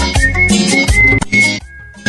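Ecuadorian cumbia music with a steady bass beat and a high, held lead melody. About one and a half seconds in, the band drops out briefly and leaves a single held tone.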